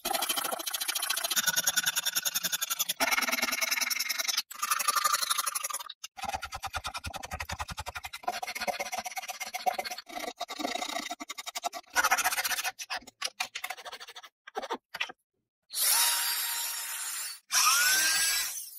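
Wood being worked with a drill and hand tools in a string of short edited clips: rapid, even scraping and rasping strokes on the wood, broken off abruptly between clips.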